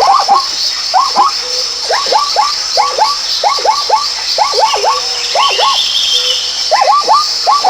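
A chorus of animal calls: many short, swooping notes, several a second and overlapping, over a steady high-pitched hiss, with a brief lull about six seconds in.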